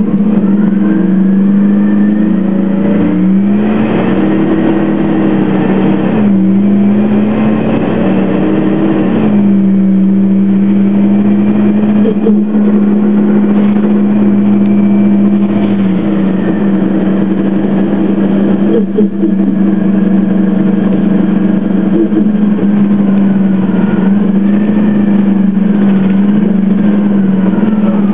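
2003 Orion VII CNG transit bus running, its Detroit Diesel Series 50G natural-gas engine and Allison B400R automatic transmission giving a loud, steady low drone that dips in pitch a few times, with fainter whines rising and falling above it.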